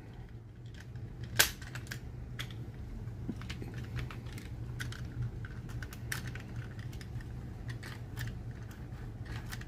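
Light, irregular plastic clicks and taps from the internal trigger and catch mechanism of an opened Adventure Force Desperado foam-dart blaster being worked by hand, with one sharper click about a second and a half in. A steady low hum runs underneath.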